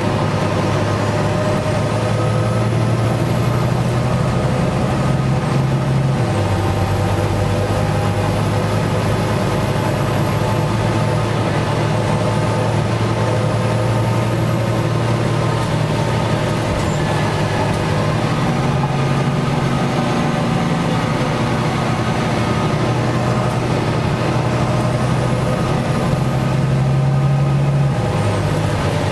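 Volvo B9TL double-decker bus engine, heard from the lower-deck saloon as the bus drives along. Its low, steady note drops in pitch about six seconds in and again near the end, with faint high whines rising and falling over it.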